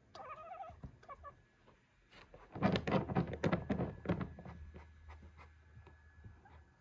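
An animal calling: a few short rising chirps in the first second, then a loud, rapid chattering run of clicks for about a second and a half, fading out.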